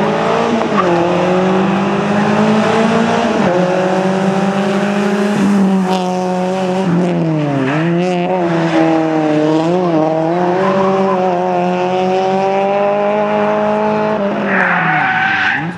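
Fiat Cinquecento Sporting rally car's 1.2 16v four-cylinder engine at high revs, its pitch climbing steadily with several brief dips at gear changes. Near the end the revs drop sharply and tyres squeal.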